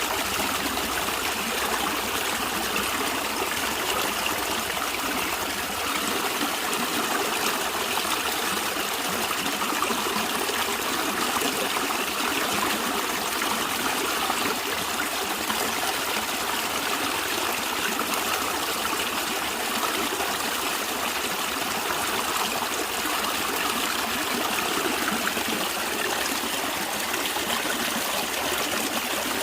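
A stream running steadily, a continuous rush of water with a trickling, splashing texture that does not change.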